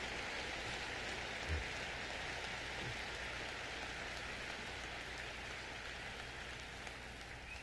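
A large audience applauding, a dense patter that slowly dies away, heard through a vinyl record transfer. There is a single soft low thump about one and a half seconds in.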